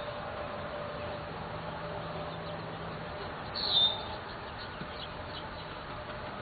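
A bird gives one short, falling chirp about three and a half seconds in, followed by a few faint chirps, over steady outdoor background noise.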